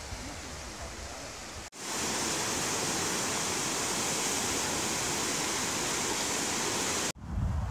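Whitewater of river rapids rushing, a loud, even hiss of churning water. It comes in abruptly about two seconds in, after a quieter stretch, and cuts off just before the end.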